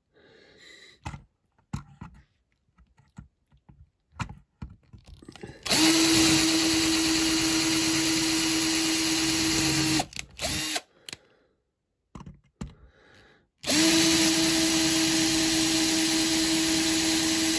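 An electric drill drills out a rivet on a diecast toy car's baseplate. It runs twice with a steady whine, first for about four seconds, then after a short stop and a near-silent pause it runs again for the last four seconds. A few light handling clicks come before the first run.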